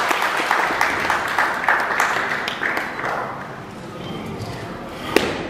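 Audience applauding, the clapping thinning out and fading over the first three seconds, with crowd voices underneath; a single sharp crack about five seconds in.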